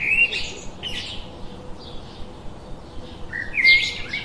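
Birds calling: quick warbling whistles and chirps, one cluster at the start and a louder one about three and a half seconds in, with fainter calls between.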